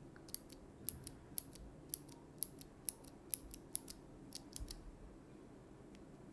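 A loose blue clicky mechanical keyboard switch, just removed from the keyboard, pressed repeatedly by hand close to the microphone. It gives sharp clicks in pairs (press and release) about twice a second, then stops a little over four seconds in.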